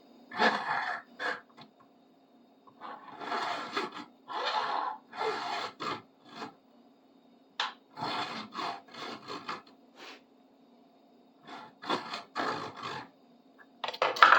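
Hand file being pushed across a metal tool's edge in repeated rasping strokes, about a dozen in uneven groups, squaring off an edge that sat at an angle.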